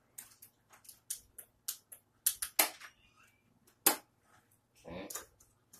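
Snap Circuits snap-on parts clicking as they are handled and pressed onto the plastic base grid: a scatter of sharp clicks, the loudest about two and a half and four seconds in.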